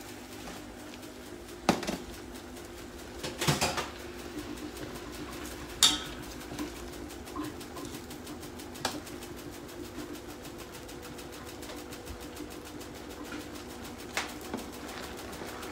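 Stainless-steel pots, a mesh strainer and tongs knocking and clattering a handful of times as cooked pasta is tipped from one pot into another and tossed, over a steady low hum.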